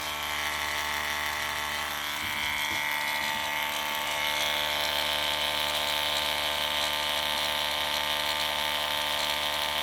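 Electric water pump's motor running with a steady whirring hum and a high whine that grows slightly stronger about four seconds in. The motor keeps running, but the pump neither sucks water in nor pushes any out.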